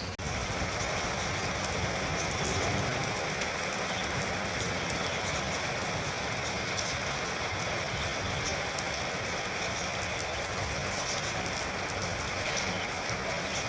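Monsoon rain falling steadily, with fine drop impacts throughout, after a brief dropout at the very start.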